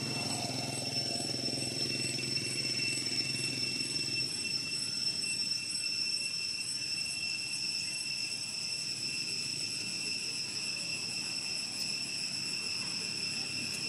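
A steady, unbroken high-pitched insect drone. Under it, a low distant engine rumble fades out about four seconds in.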